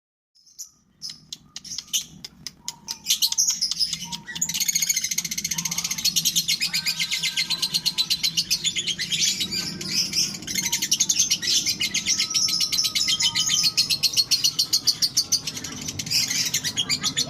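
Female lovebird ngekek: scattered chirps about half a second in quickly build, within a few seconds, into a long, unbroken, very fast high-pitched chatter.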